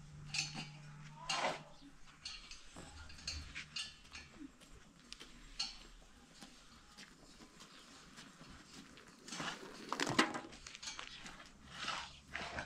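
Scattered light metal clinks and knocks from the valve and regulator on top of a bottled-gas cylinder being worked by hand, with a louder clatter about ten seconds in.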